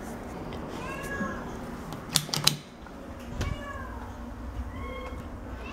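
Kitten meowing three times, short high meows that rise and then fall in pitch. A quick run of three sharp clicks comes about two seconds in.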